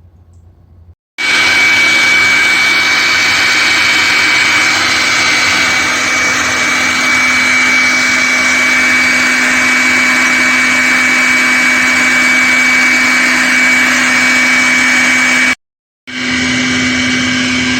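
Electric blower switched on about a second in, running loud and steady with a high motor whine, blowing water out of a sprinkler line through its hose connection so the pipe stops dripping. The sound cuts out for about half a second near the end and comes back.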